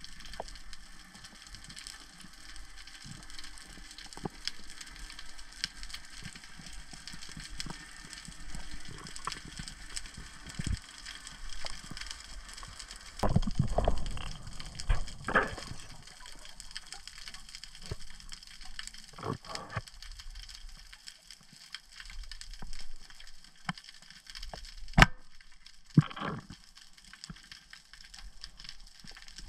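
Underwater sound through an action camera: a steady fine crackling of the kind snapping shrimp make over a rocky Mediterranean seabed. Louder rushes of water come around the middle, and a very sharp snap about three-quarters of the way through.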